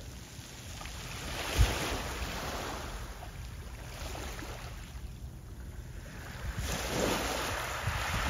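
Wind buffeting the microphone over the rushing wash of small harbour waves. The rushing noise swells twice, about a second and a half in and again near the end, with low thumps of wind on the microphone.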